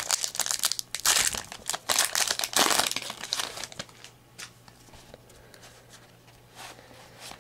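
Trading card pack wrapper being torn open and crinkled, loud and noisy for about the first three and a half seconds. Then the quieter, occasional light ticks of the cards being handled.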